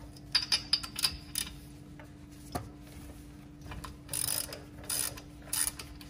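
Ratchet wrench clicking in several short runs, with a single click between them, as a spark plug socket on it turns the spark plug out of a small two-stroke dirt bike engine.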